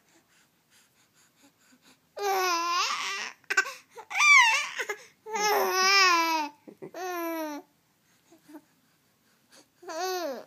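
A baby vocalizing: a run of drawn-out, wavering-pitched vocal sounds, about five in a row after a quiet first two seconds, one climbing high about four seconds in, and another just before the end. It is an infant trying out its voice, not speech.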